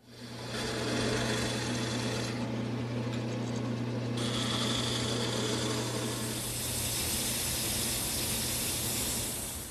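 Wood lathe running with a steady hum while a skew chisel cuts a V-groove into the spinning wooden mallet head. The cutting hiss thins for a couple of seconds, then comes back brighter and harsher.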